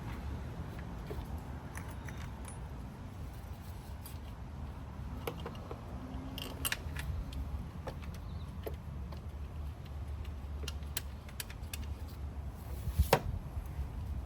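Metal tools and engine-bay parts clinking and clicking during reassembly, scattered taps with a sharper knock near the end, over a low steady rumble.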